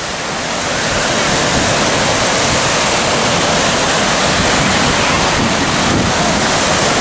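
Surf breaking and washing up the beach: a steady rushing that swells a little over the first second.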